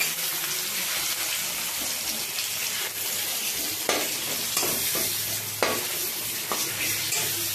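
Tomato pieces and onions sizzling in oil in a metal kadai, stirred with a metal spatula that scrapes and knocks against the pan a few times over a steady sizzle.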